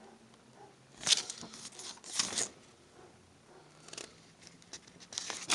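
Plastic DVD case and its paper insert being handled: several short rustling, crinkling bursts with a few sharp clicks, the loudest about a second in and just after two seconds.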